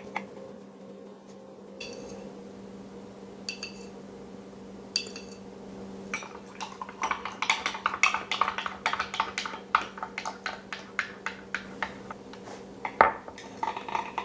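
Dishes and cutlery clinking. A few separate ringing clinks come first, then a fast run of clinks for several seconds, and one louder knock near the end, over a steady low hum.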